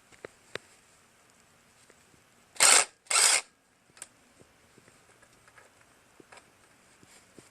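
Light clicks and taps of hand tools on metal as a carburetor assembly is unbolted from a small engine's intake manifold, with two short hissing bursts in quick succession a little under three seconds in.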